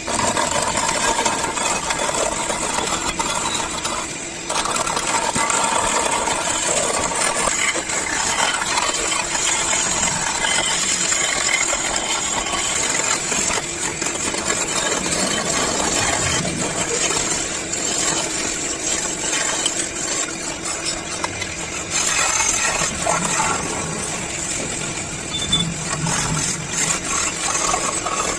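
Wood lathe running while a turning tool cuts into a large spinning length of wood: a continuous loud scraping and cutting noise over the machine's running, changing abruptly about four seconds in and again near twenty-two seconds.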